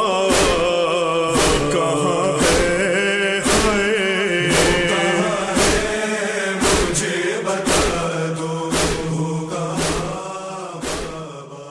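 Voices chanting a devotional noha lament over a steady held low note, with a sharp beat about once a second; the whole fades out near the end.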